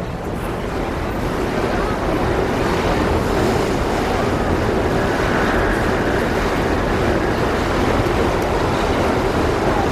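Steady rush of a rainy city street: rain and wet-street noise blending into one dense, even wash that grows a little louder over the first few seconds.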